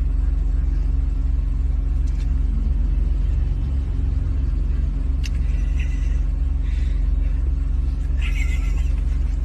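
A steady low mechanical rumble and hum, like a vehicle's engine running, with a few faint short higher sounds over it in the second half.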